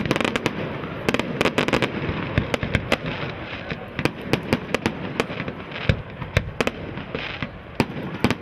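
Fireworks display: a rapid, irregular string of sharp bangs, several a second, over continuous crackling.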